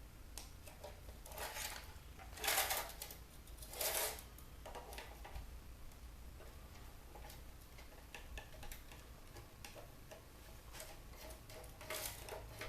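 Screwdriver working at a stuck screw in a bug zapper's plastic housing: scattered small clicks and scrapes, with two louder scrapes about two and a half and four seconds in, and another near the end.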